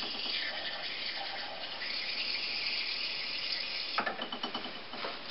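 Beer drawn from the tap of a plastic homebrew pressure barrel into a glass: a steady hissing pour that stops sharply about four seconds in with a click, followed by a few light ticks.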